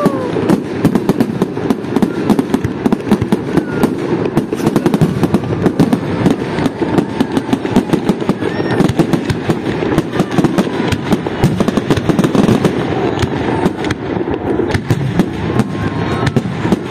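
Aerial fireworks display: shells bursting and crackling overhead in rapid, continuous succession, a dense barrage of many bangs a second.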